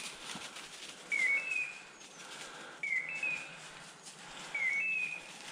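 A pointing dog's beeper collar sounding its point-mode signal: an identical electronic chirp that rises quickly and steps up to a higher held note, three times, about every 1.7 seconds. It is the sign that the dog is standing on point.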